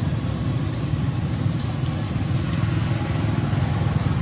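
Steady low rumble of outdoor background noise, with a thin, steady high tone running through it. No distinct animal call or other event stands out.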